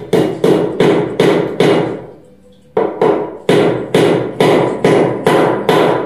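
Hammer blows on the wooden rail at the top of a Windsor chair's back posts, driving the joints home. There is a run of five sharp knocks, a pause of about a second, then eight more, roughly two a second.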